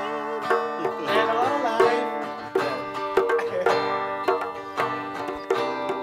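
A plucked string instrument playing a lively tune, with quick picked notes striking several times a second.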